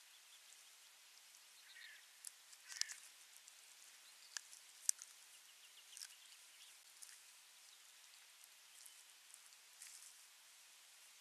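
Adult osprey tearing flesh from a fish on its stick nest: scattered short, sharp clicks and snaps over near silence, the loudest about three and five seconds in.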